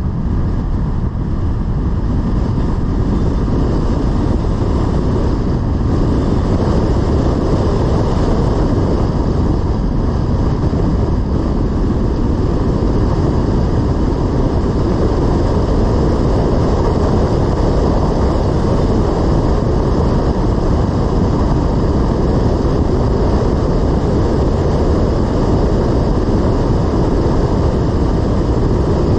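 A car driving at a steady pace: a continuous low rumble of road and wind noise that holds even throughout.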